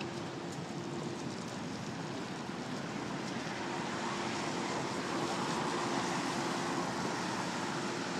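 Steady rushing outdoor noise, a little louder toward the end, with a faint steady hum underneath.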